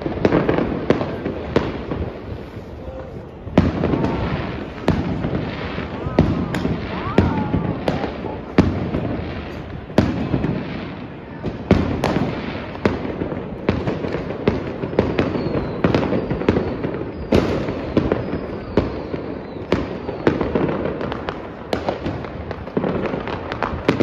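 Fireworks and firecrackers going off: sharp bangs at irregular intervals, roughly one a second, over a continuous rumble and crackle between them.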